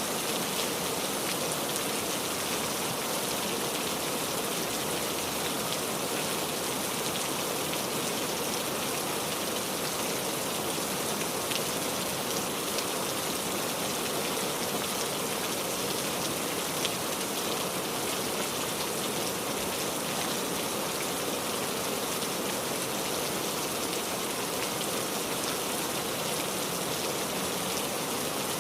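Steady rain falling, a continuous even hiss of raindrops with a few individual drop ticks standing out now and then.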